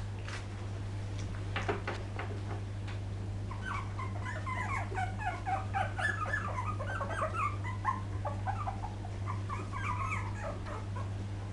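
Young poodle puppies whimpering in a rapid flurry of short, high squeaks, starting a few seconds in, with a second burst near the end. A steady low hum runs underneath.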